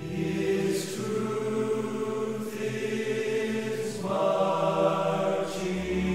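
Worship choir singing long held notes in a slow hymn, the chord changing every second or two.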